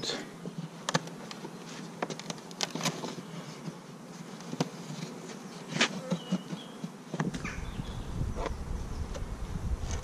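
Honeybees buzzing steadily around an open hive, with a few sharp clicks scattered through. From about seven seconds in, a low rumble joins.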